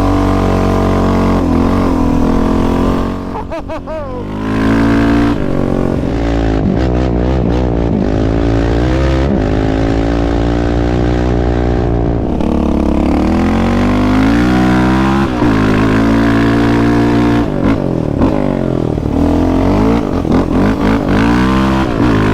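Yamaha Raptor 700 quad's single-cylinder four-stroke engine running hard under load, revving up and down as the throttle opens and closes. The engine dips briefly about three seconds in. Strong wind rushes over the microphone.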